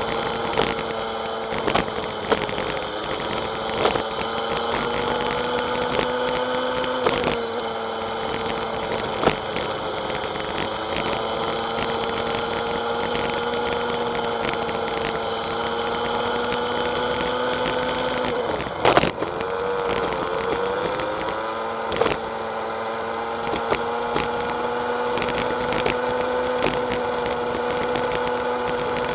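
Motorbike engine running steadily while underway, with scattered sharp knocks. About two-thirds through, the engine note drops briefly and then climbs back.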